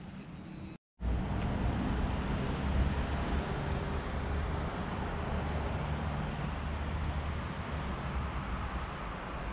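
Steady hum of city road traffic with a low rumble, cutting out completely for a split second just before a second in.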